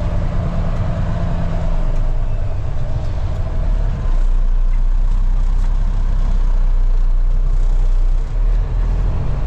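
Dump truck's diesel engine running while the truck backs up. It gets louder about four seconds in and dips briefly near the end.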